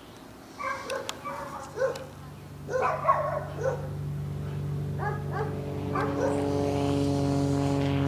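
Dogs barking: a string of short barks and yips, loudest about three seconds in. From about four seconds in, steady held tones come in underneath and grow louder.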